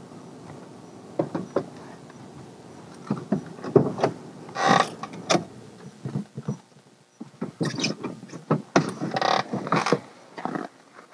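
Knocks, clicks and rustling from someone moving about in a Toyota pickup's cab and opening the driver's door. A low steady hum underneath fades out about halfway through.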